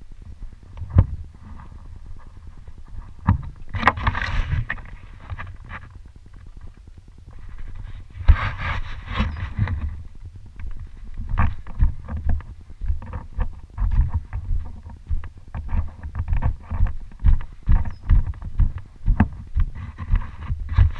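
Bike riding over dirt jumps, heard from a helmet camera: irregular thuds and rattles as it lands and rolls over bumps, with wind buffeting the microphone. There are two longer hissing rushes of tyre and wind noise, one about four seconds in and one around eight to ten seconds.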